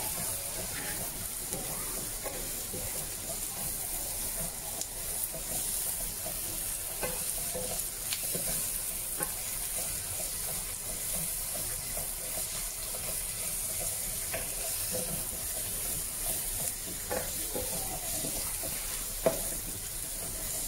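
Chopped onion, carrot, green chilli and bell pepper sizzling in oil while being stir-fried with a wooden spatula in a nonstick pan. A steady sizzle runs under soft scraping and scattered taps of the spatula, with one sharper knock near the end.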